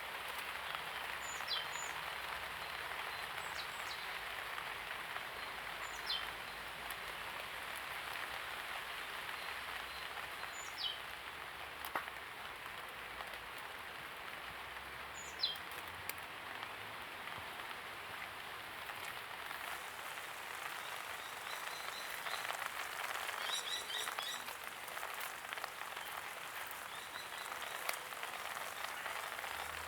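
Steady rain falling, with a bird repeating a short high falling whistle about every four to five seconds and a quick run of chirps about three-quarters of the way through.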